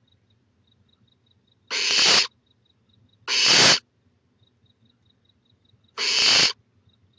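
Barn owl chick snoring: three hissing begging calls, each about half a second long, the second about a second and a half after the first and the third near the end.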